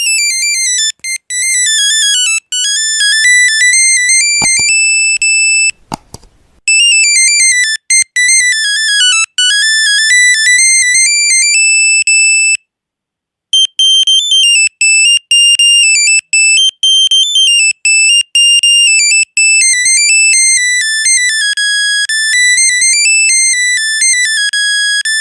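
Old monophonic mobile-phone ringtone in the Nokia 1100 style: a fast melody of single high beeping notes, one at a time, rising and falling. It pauses for about a second around halfway and starts again. A couple of low thumps come about four to six seconds in.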